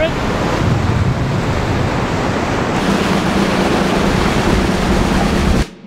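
Surf breaking on the beach with wind buffeting the microphone: a loud, steady rush with a heavy low rumble. It cuts off suddenly near the end.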